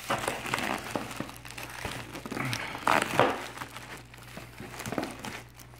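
Shipping packaging being unwrapped and handled: irregular rustling and crinkling with small knocks, louder for a moment about three seconds in.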